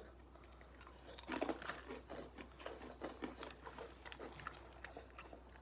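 Faint crinkling and rustling of a plastic snack bag being handled, with many small crackles and clicks, busiest from about one to four and a half seconds in.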